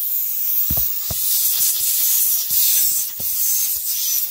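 Air hissing steadily out of a punctured vehicle tyre: a loud, high hiss that marks a leak. A few faint knocks come from the tyre being touched.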